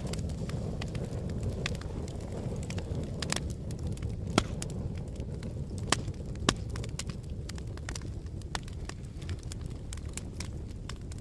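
Fire crackling, with irregular sharp pops, a few louder ones around the middle, over a low steady rush of wind.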